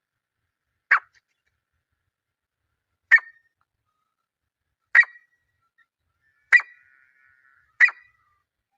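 Grey francolin calling: five short, sharp calls spaced about one and a half to two seconds apart.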